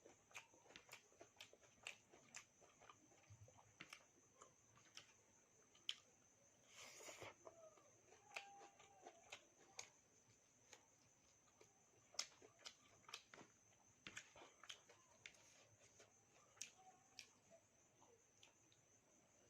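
Close-up eating sounds: chewing and wet mouth clicks, with many short irregular clicks and a brief breathy rush about seven seconds in.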